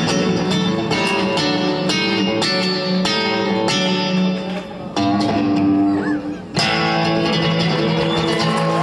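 Amplified acoustic guitar strummed and picked through a club PA, playing chords with no singing, briefly dipping about six and a half seconds in.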